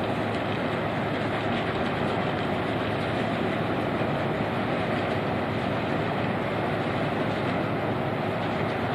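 Steady, unchanging rumble of a vessel's engine with water noise.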